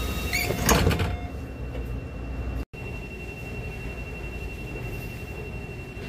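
Metro train's sliding passenger doors closing, ending in a thud about a second in. After a brief dropout, the train gives a steady low hum with a thin, steady high whine.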